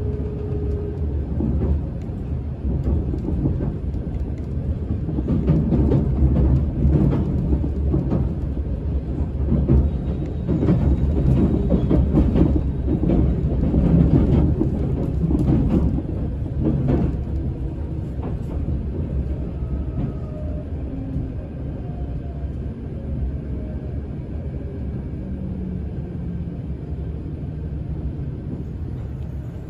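Inside a JR Shikoku 8000 series limited express car with a Toyo Denki hybrid SiC VVVF inverter: a heavy running rumble, with the wheels knocking over rail joints and points in the middle. After that it grows quieter and the motor tone falls in pitch as the train brakes for a station stop.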